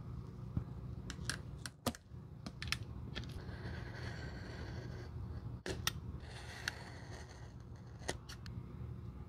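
Utility knife blade drawn along a steel ruler, cutting through a sheet of rubber soling in two scraping strokes, with sharp clicks and taps as the ruler and knife are handled and set against the sheet.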